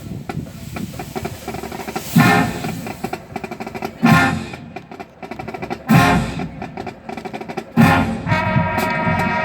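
High school marching band playing: loud brass-and-drum accents about every two seconds over fast snare-drum patterns, then the brass settles into a long held chord near the end.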